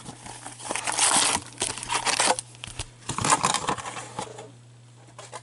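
Cardboard box and wrapped hockey card packs being handled: a run of crinkling and rustling with small knocks that dies away about four seconds in.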